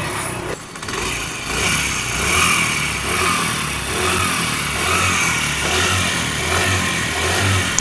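Motorcycle engine running steadily with an odd mechanical noise from inside the engine. The mechanic suspects the timing chain, pulled too tight by an over-stiff tensioner spring.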